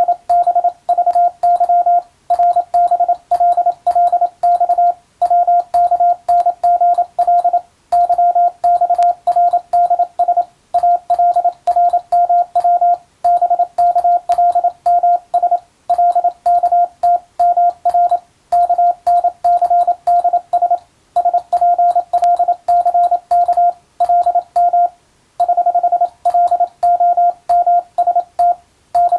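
Morse code: a single tone of about 700 Hz keyed in fast dots and dashes, sending an English-text radiotelegram. The runs of characters are broken by short pauses every two to three seconds.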